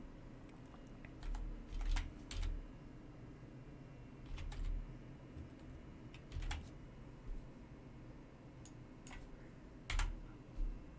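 Keystrokes on a computer keyboard, typed in small irregular groups with pauses between them.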